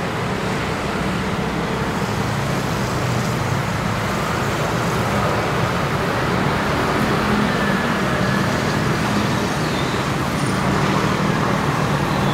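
Steady city road traffic: a constant wash of road noise with the low hum of vehicle engines underneath.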